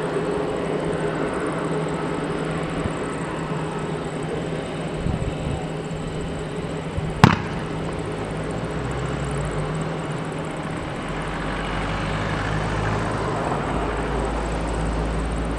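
Distant Airbus A330neo's Rolls-Royce Trent 7000 jet engines running as it moves along the runway: a steady rumble and hiss, growing deeper and louder about two-thirds of the way in. A single sharp click near the middle is the loudest sound.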